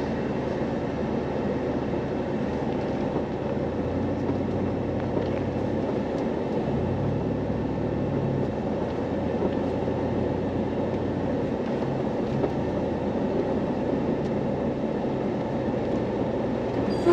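Pickup truck driving along a dirt trail, heard from inside the cab: a steady rumble of engine and tyres, with the engine note shifting a little now and then.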